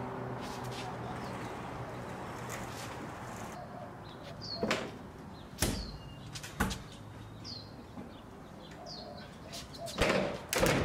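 Knocks and thumps from a large wooden camper shell being pushed and tilted up against a pickup's tailgate, a few single knocks with the loudest cluster near the end. A small bird chirps in short falling notes about once a second behind them, after a low steady hum in the first few seconds.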